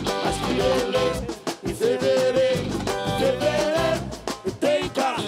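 Live Brazilian band music: shoulder-slung drums keep an upbeat rhythm under guitars and singing.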